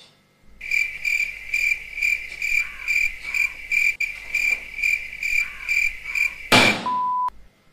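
Cricket chirping used as an edited-in 'awkward silence' sound effect: an evenly pulsed high chirp, about two a second, over a low hum. Near the end it is cut off by a sudden loud burst of noise, followed by a short high beep.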